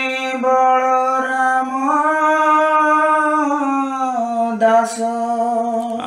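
A solo voice singing an Odia devotional bhajan to Jagannath in long held notes. The pitch steps up slightly about two seconds in, drops back near four seconds, and breaks briefly near the end.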